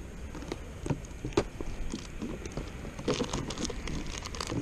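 Scattered small clicks and light knocks from a hooked bass being handled on a handheld lip-grip fish scale, the loudest about a second in and a flurry near the end, over a low steady rumble.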